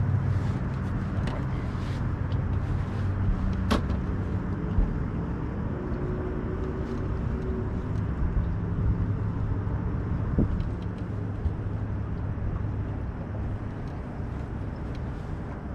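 A steady low mechanical hum under a rushing noise, with one sharp click about four seconds in.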